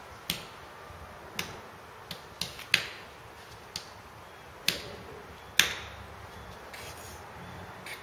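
Hands tapping and slapping on a thick glass pane: about eight irregular knocks, the loudest two near the middle and about two-thirds of the way through.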